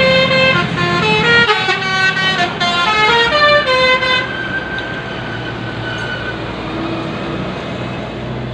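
Telolet basuri bus horn, a multi-tone musical air horn, playing a quick tune of short stepped notes that ends about four seconds in. A bus engine's steady hum runs beneath it and carries on after the tune stops.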